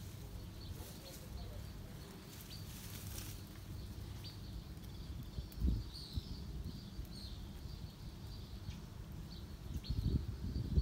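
Outdoor ambience: scattered faint chirps of small birds over a steady low rumble, with one thump about halfway through and a few more bumps near the end.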